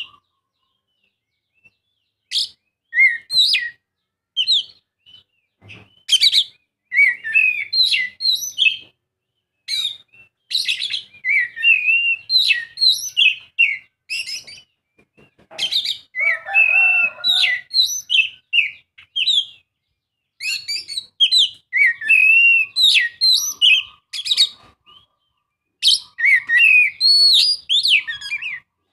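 Oriental magpie-robin singing a long, varied song of rapid high whistles and chirps in phrases broken by short pauses, with a rougher, lower passage about halfway through.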